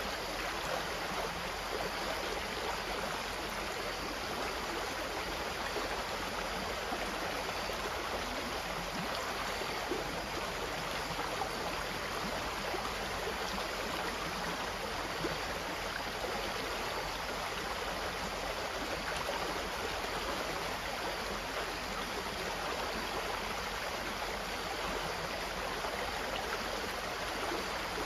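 Stream water flowing and splashing steadily, without pauses.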